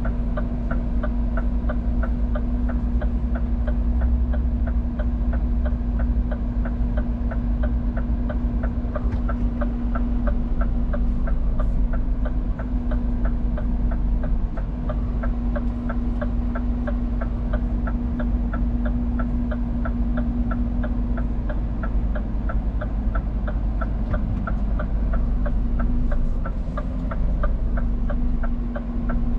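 Scania P410 truck's diesel engine running steadily, heard from inside the cab: a low rumble with a steady hum over it, and a quick, regular light ticking, about three ticks a second.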